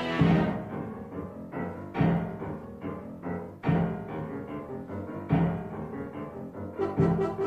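Instrumental classical music for the dance: five heavy, accented low chords, evenly spaced about every second and a half, with quieter sustained notes ringing between them.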